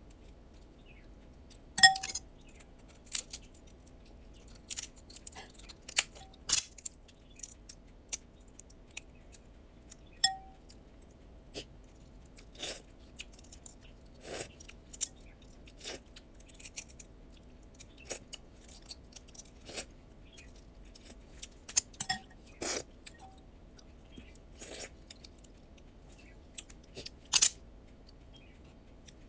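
Eating blue crab: shells cracked and picked apart, with chewing and the clink of metal tools, in scattered sharp clicks and crunches every second or so, a few of them ringing briefly.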